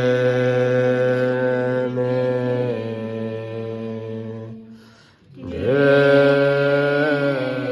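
Group of Tibetan Buddhist devotees chanting a supplication prayer to the root lama in unison from prayer books, on long held notes. The pitch steps down about three seconds in; near five seconds there is a short break for breath, then the next line begins.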